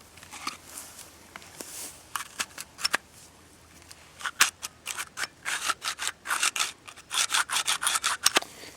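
Glock pistol's action being worked by hand, gritty scraping and clicking from sediment inside it. Scattered clicks at first, then a fast run of scratchy strokes from about halfway through.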